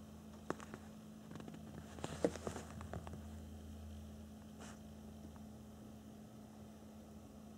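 Faint steady electrical hum, with a few light clicks and rustles of handling, loudest about two seconds in.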